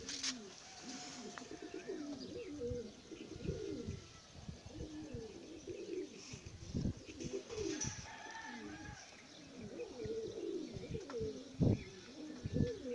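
Domestic pigeons cooing again and again, with a few short sharp knocks among the coos.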